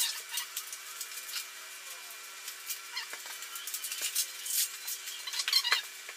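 Woven plastic sack wrapping and paper rustling and crinkling as they are cut and pulled open with a utility knife, in a string of quick scratchy crackles. A louder burst of crinkling comes near the end.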